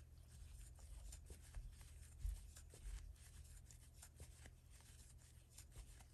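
Faint sounds of crocheting: a hook working yarn, with soft scattered clicks and rustling over a low steady hum.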